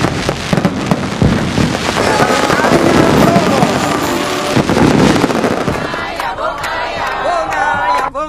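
Fireworks going off, an irregular run of bangs and crackling with crowd noise underneath. It thins out and gets quieter after about six seconds, as a voice starts singing near the end.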